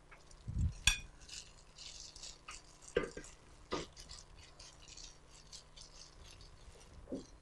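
Plastic-gloved hands mixing and kneading walnut cookie dough in a glass bowl: crinkly rustling of the gloves, with a soft thump and a ringing glass clink about a second in and a couple of sharp knocks near three and four seconds.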